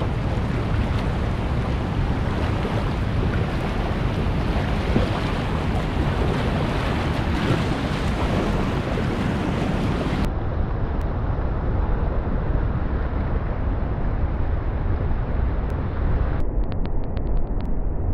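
Whitewater rapids and a waterfall on a river in high flood: a steady, loud rush of churning water. The sound turns duller about ten seconds in and again near the end.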